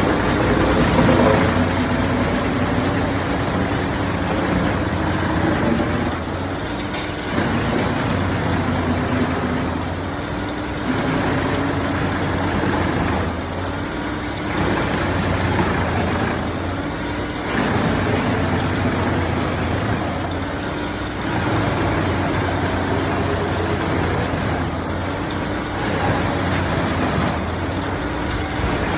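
Wood chipper running while a tree is fed through and chipped. The engine pitch sags and recovers again and again as branches are pulled in, over a steady grinding of wood being chipped.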